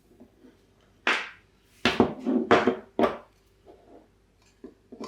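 Sharp knocks and clatters of hard objects being handled against a board, about five in two seconds starting a second in, followed by a few faint taps.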